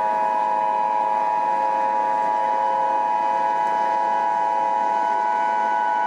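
Emergency Alert System attention signal: a loud, steady electronic alarm tone, the warning that an emergency alert message is about to follow.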